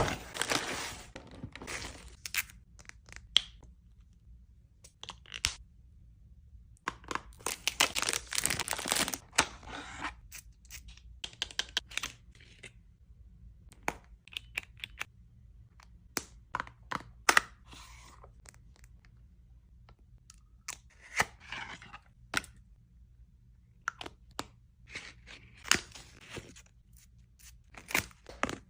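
Packaging being opened by hand: tearing and crinkling of paper and plastic, with scattered clicks and taps of product boxes and cases. The longest stretches of tearing come near the start and again about seven to ten seconds in.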